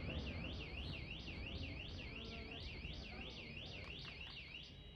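A car alarm wailing in a fast up-and-down warble, about three to four sweeps a second, that cuts off near the end. Under it a low rumble from the fireworks dies away.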